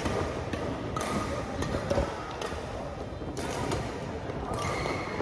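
Badminton rackets striking a shuttlecock in a doubles rally: several sharp hits about a second apart, over faint background music.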